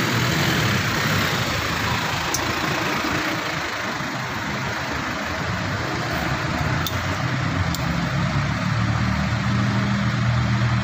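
Steady engine-like running noise, a low hum with a broad hiss over it, the hum growing stronger near the end, with a few light clicks.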